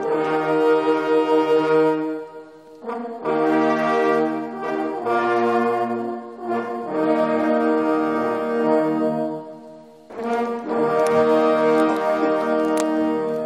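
Brass ensemble music: horns playing slow, held chords in phrases, with short breaks about three and ten seconds in.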